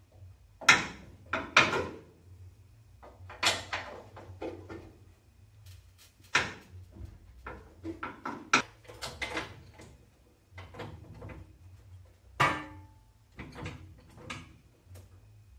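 Irregular metal clanks and clicks of hand tools as a wrench works the bolts under a car's chrome front bumper, some knocks louder than others.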